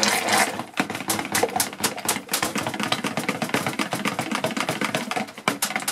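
Handheld stick blender running in a bowl of thickening cold-process soap batter: a steady motor hum with many irregular clicks and taps.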